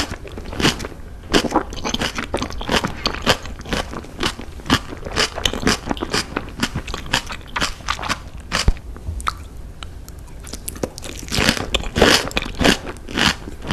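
Close-miked crunchy chewing of salmon-wrapped rolls, a dense run of irregular crunches, with a louder burst of crunching a little before the end as a fresh bite is taken.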